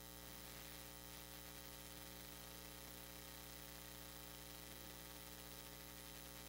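Near silence apart from a steady electrical mains hum with a faint hiss.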